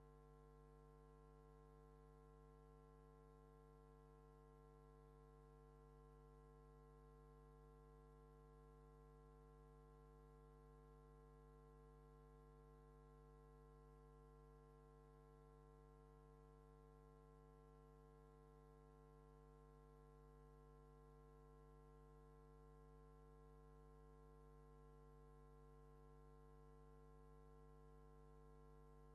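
Near silence: only a faint, steady hum of several constant tones that never changes.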